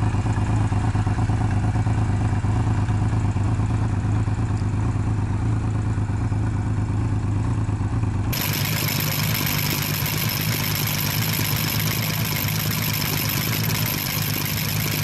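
Kawasaki Z1300's inline-six idling steadily. About eight seconds in, the sound cuts to a second recording of a six-cylinder engine idling evenly through open velocity stacks on Keihin FCR carburettors, a little higher in pitch and brighter.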